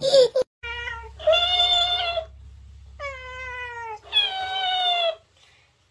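A cat meowing four times, the calls drawn out, one sliding down in pitch. It opens with a brief loud cry from a toddler that cuts off.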